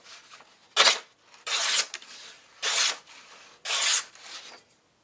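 Freshly sharpened knife blade drawn in four short rasping strokes, about one a second.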